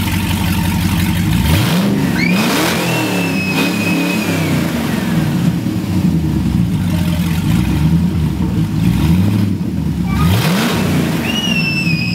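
LS-series V8 swapped into a Mitsubishi Pajero, idling and blipped up in revs twice, once near the start and again near the end. After each blip there is a high whistling tone.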